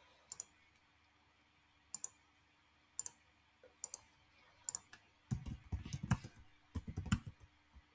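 Computer mouse clicks, single clicks about a second apart, then from about five seconds in a quick run of keyboard keystrokes as a command is typed.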